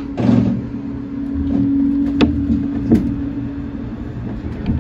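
Shonan Monorail 5600-series suspended monorail car pulling away from a station: a short hiss just after the start over a steady hum, then a low rumble building as the car gets moving, with two sharp clicks.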